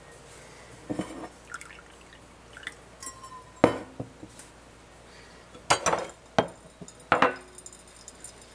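Coffee dripping from a flannel filter into a glass server, then a series of short knocks and clinks of glass and metal as the filter is lifted off its wire stand and the glass server is slid out. The loudest knock comes a little under four seconds in, with a quick cluster of clinks around six to seven seconds.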